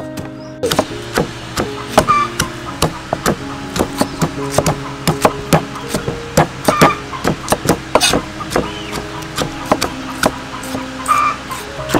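Cleaver chopping tomatoes on a thick round wooden chopping block: quick, irregular knocks of the blade on the wood, a few a second, starting about half a second in. Soft background music runs underneath.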